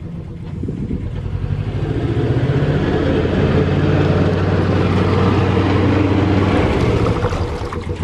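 A narrowboat's engine running steadily at low revs, growing louder over the first few seconds as the stern draws in close alongside the bank, then easing off just before the end.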